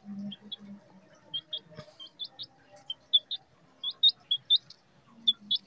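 Chicken chick peeping while it pecks millet from a hand: short, high, upward-sliding peeps, a few a second, with a couple of soft thumps near the start and the end.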